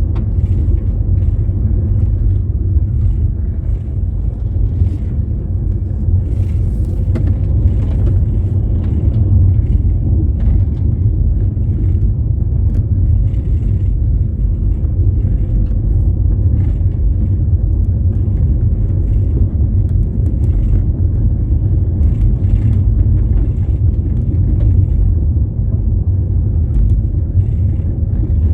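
A vehicle driving, with a steady low rumble of engine and road noise and faint knocks now and then.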